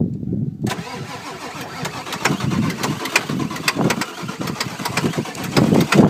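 Ford 7.3-litre Powerstroke V8 diesel cranking and catching on starting fluid under a second in, then running rough with sharp, irregular knocks. A hard cold start that the owners put down to a failed glow plug relay.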